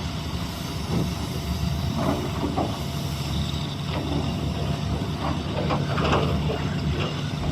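Doosan DX390 excavator's diesel engine running steadily, with scattered clanks and knocks through it.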